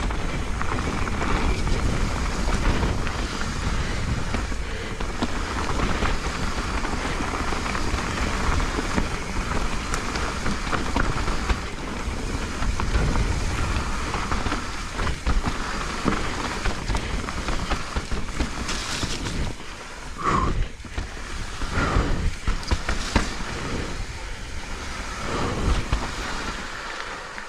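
Mountain bike descending a wet, muddy trail: a steady rush of wind and tyre noise, with sharp knocks and rattles from the bike over rough ground in the second half.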